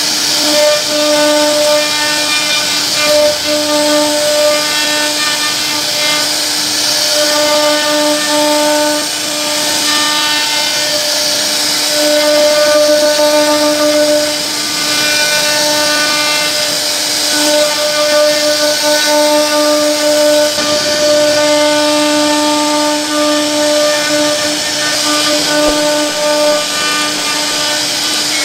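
CNC router spindle running with a steady whine over a high hiss as its bit carves a relief pattern into a wooden door panel; the whine fades in and out every second or two as the cutter moves through the wood.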